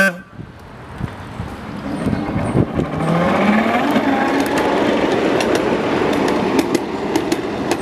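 A small motorised track car on a 7½-inch gauge miniature railway pulling away. Its motor rises in pitch as it gathers speed, with its wheels clicking over the rail joints.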